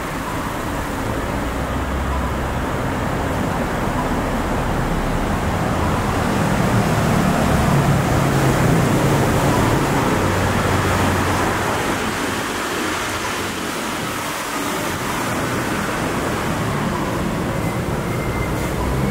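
Road traffic going by: a steady rush of engines and tyres, with a vehicle's engine hum swelling about halfway through and again near the end.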